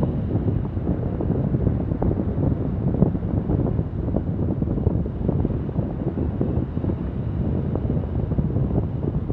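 Wind buffeting the microphone of a camera on a paraglider in flight: a steady, low rushing noise.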